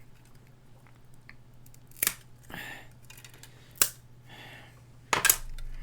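Three sharp clicks about a second and a half apart, the last the loudest, the first two each followed by a brief rasp: the parts of a keyboard kit being worked apart by hand at their scored attachment points. A faint low hum runs underneath.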